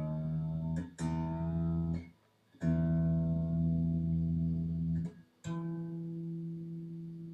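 A single string on a Squier Jagmaster electric guitar plucked and left to ring, over and over, to check its intonation against a tuner: a note rings at the start, then three fresh plucks about a second, two and a half seconds and five and a half seconds in, each held a second or more before being damped, the last fading slowly.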